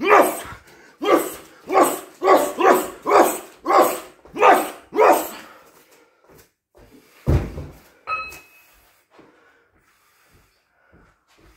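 A fighter's sharp, bark-like grunts, one with each punch thrown while holding 2.5 kg hand weights: about ten in quick succession over some five seconds. Then a single heavy, deep thud, followed by faint breathing.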